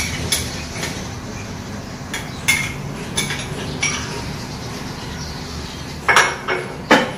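A small bowl and a utensil clinking and scraping against a wok as ground spice paste is emptied into it. There are a few separate sharp clinks that ring briefly, then a cluster of louder knocks near the end.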